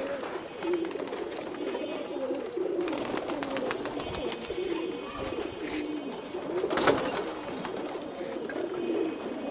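A flock of domestic pigeons cooing continuously in overlapping low warbles, with short flurries of flapping wings, the loudest about seven seconds in.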